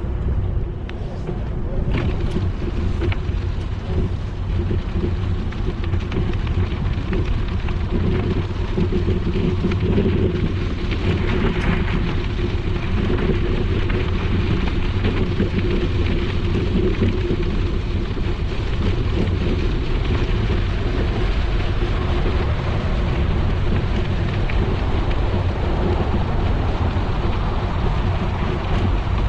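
Bicycle tyres rolling over a packed gravel path, a steady crunching hiss, with a low rumble of wind on the microphone.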